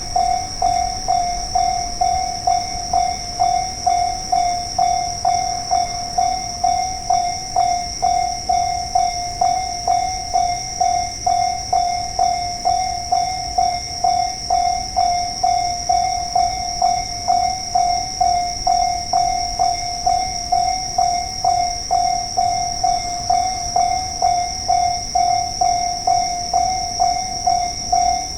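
Japanese railway level-crossing warning bell ringing an even, repeated ding, just under two a second, signalling that the crossing is closed for an approaching train.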